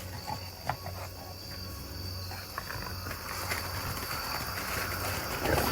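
Steady high-pitched insect trill, like crickets, over a faint low hum, with a few soft clicks.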